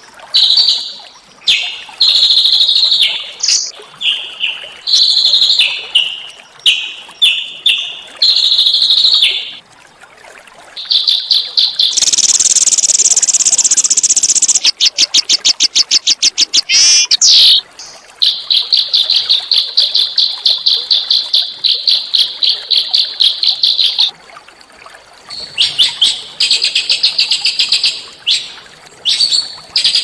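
A small songbird singing a varied, harsh song: short whistled phrases, a rasping burst about twelve seconds in, then rapid trills, including a long, even, fast trill lasting about six seconds, followed by more short phrases.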